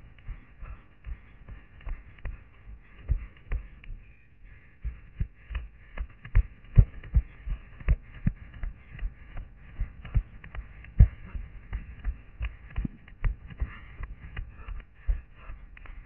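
Running footsteps on a dry forest floor of pine needles, twigs and scrub, about three strides a second, heard as low thuds with some louder footfalls.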